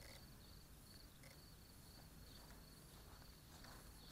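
Near silence with a cricket's faint, steady high-pitched trill in the grass.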